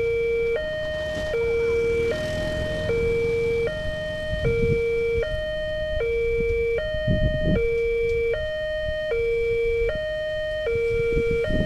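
Railway level-crossing warning alarm sounding as the crossing barrier closes for an approaching train. It is an electronic two-tone signal switching back and forth between a lower and a higher note, each held about three-quarters of a second.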